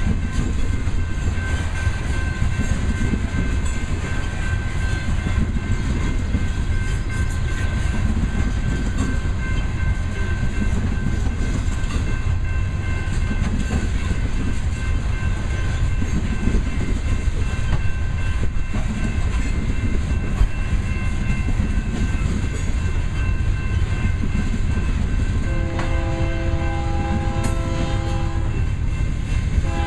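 A loaded coal train's cars rolling past at steady speed: a continuous rumble of steel wheels on the rails, with clicking over the rail joints. About 25 seconds in, a locomotive's multi-chime air horn sounds one steady blast of about three seconds, and it starts again right at the end.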